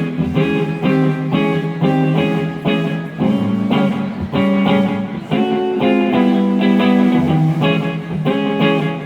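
Live band playing the instrumental intro of a song, with guitar to the fore and notes struck on a steady beat.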